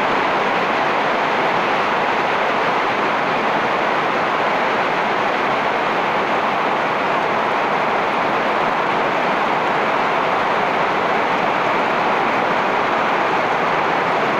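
Heavy tropical rain pouring steadily onto palm and banana leaves and the ground, a constant, even hiss.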